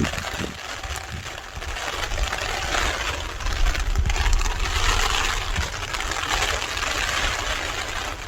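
Typhoon rain and wind, a steady rushing hiss that swells and eases, with gusts of wind rumbling on the microphone.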